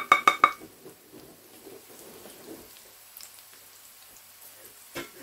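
A quick run of about five sharp taps with a brief metallic ring: a wooden spoon knocking ground spices off a tray into a stainless steel pot. Then a faint, steady sizzle of onions frying in oil, with a couple of light clicks near the end.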